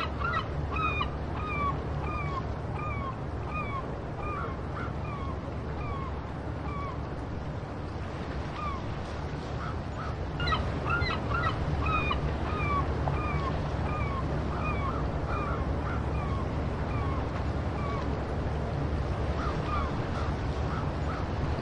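A mixed group of waterbirds calling over and over in short, clear calls, often several a second, with a sparser stretch a few seconds in before the calling picks up again, over a steady low rumble.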